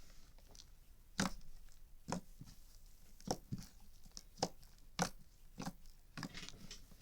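A series of sharp pops at uneven intervals, about ten over several seconds, some much louder than others.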